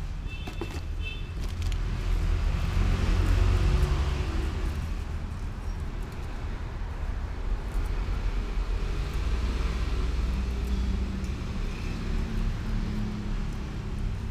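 Road traffic passing: a low rumble that swells twice as vehicles go by, with a few brief high-pitched tones about a second in.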